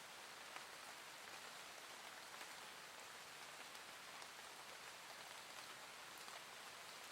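Soft, gentle rain falling steadily, with faint patter of individual drops.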